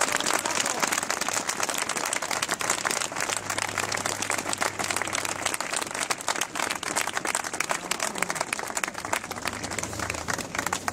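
Crowd applause: many people clapping steadily.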